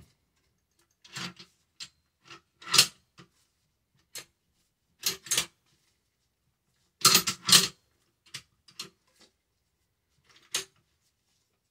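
Scattered metal clicks and clacks from a Remington 870 Tac-14 pump shotgun being worked by hand as its fore-end and action are slid apart during disassembly, with a louder pair of clacks about seven seconds in.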